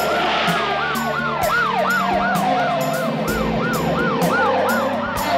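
Police-car siren yelping, each rise and fall about a third of a second long, with a second, slower siren tone sliding down beneath it in the first two seconds.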